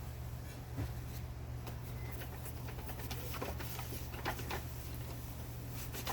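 Scattered light clicks and knocks of plastic parts being handled as a robot vacuum is put back together, over a steady low hum.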